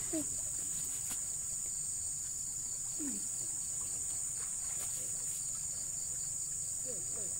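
Steady, high-pitched drone of an insect chorus, with a few faint short falling calls at about three-second intervals.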